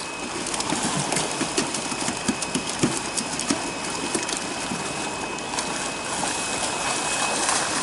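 Water splashing and sloshing as large fish thrash in a seine net and workers wade among them: a steady wash of noise broken by many small, sharp splashes.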